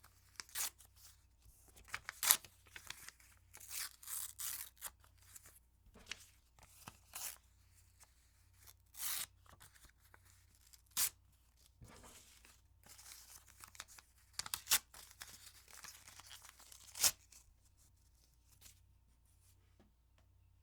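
Paper being torn by hand: a series of short rips and longer tears at irregular intervals, the sharpest rips about 2, 11 and 17 seconds in, with only faint room tone in the last few seconds.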